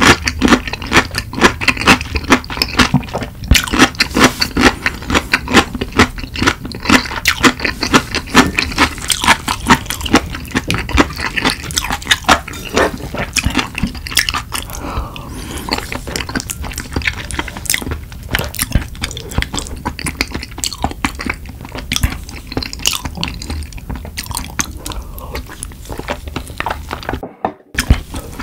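Close-miked chewing of crunchy chonggak (ponytail radish) kimchi and curry rice, a steady run of crisp crunches that thins out after the middle. A brief drop to silence near the end.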